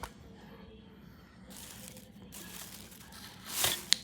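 Faint rustling of discarded toy packaging, then a short louder rustle ending in a sharp click near the end.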